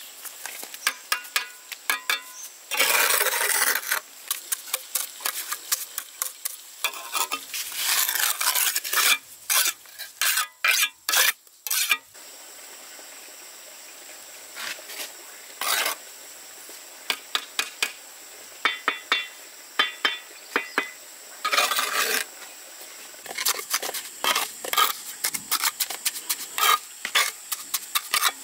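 A hand tool scraping and clinking on a hard surface in irregular runs of short strokes, with a few longer scrapes and a brief lull a little before halfway.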